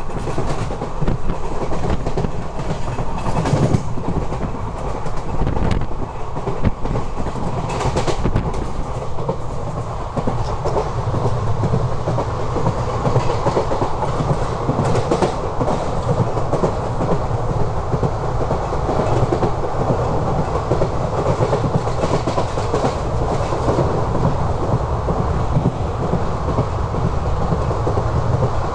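ICF passenger coach running on the track: a steady rumble of wheels on rail, with sharp clacks of the wheels over rail joints, several of them in the first few seconds.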